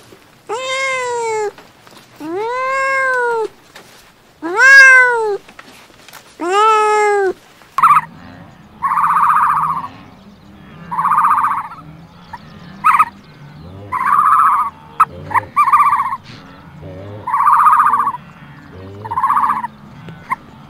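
Domestic cat meowing four times, each a long meow that rises and falls in pitch. From about eight seconds in, a different animal gives short, buzzy calls roughly every two seconds, with a few clicks between them.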